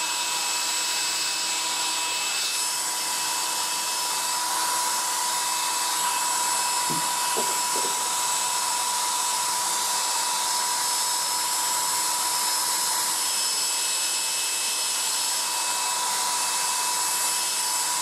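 A Black & Decker SW105 Stowaway 1000 travel hairdryer running steadily: a constant rush of blown air with a steady high whine from its fan motor over it.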